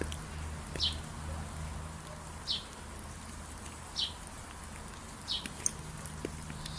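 A single bird repeating a short high call about every one and a half seconds, four times, over a steady low hum.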